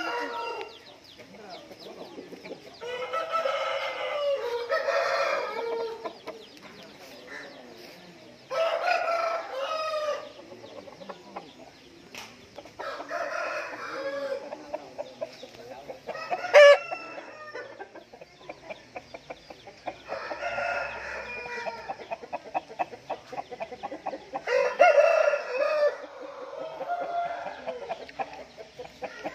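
Game roosters crowing: about six long crows a few seconds apart, with low clucking between them and one sharp click about halfway through.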